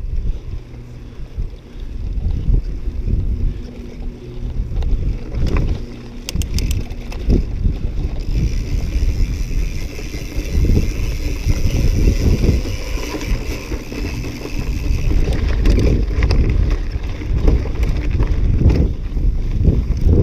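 Wind buffeting a mountain bike's action camera microphone while riding over grass, a heavy uneven rumble with scattered knocks and rattles from the bike. A steady hiss joins in about eight seconds in as the bike runs down the grassy descent.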